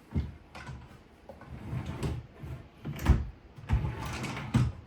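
Homemade wooden drawer being slid in and out of its cabinet, wood rubbing on wood with several knocks, the loudest about three seconds in. It now slides much better with an edge trimmed off.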